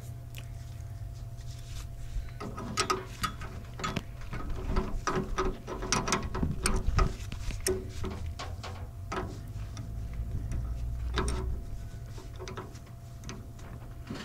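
Irregular small metallic clicks and clinks of a hand wrench and terminal hardware being worked on, over a steady low hum.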